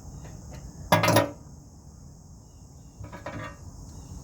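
Metal tools clanking against the skid steer's hydraulic fittings while a new hose is fitted: one sharp clank about a second in and a softer clatter about three seconds in. Crickets chirp steadily throughout.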